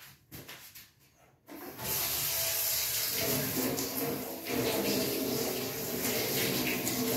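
A few faint knocks, then a kitchen tap turned on about a second and a half in, water running steadily.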